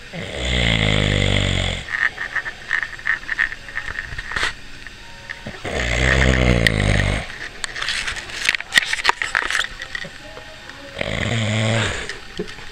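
A man snoring loudly in his sleep: three long, rasping snores about five seconds apart, with faint clicks in between.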